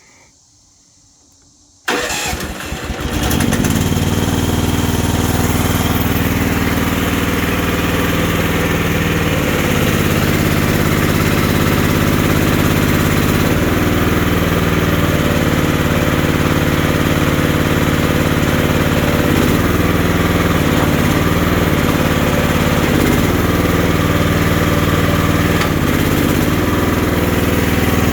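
FF15 mini excavator's engine starting about two seconds in, rough for a moment, then running steadily, its note dipping and shifting now and then.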